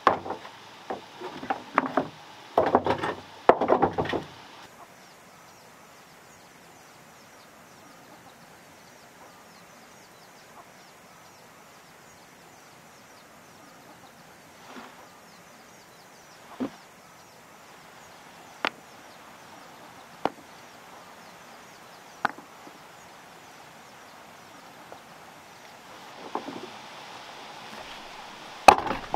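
River stones knocking against stone and wood as they are handled: a quick run of knocks at the start, single hard knocks about every two seconds in the middle as stones are dropped into a wooden wheelbarrow, and another run of knocks near the end.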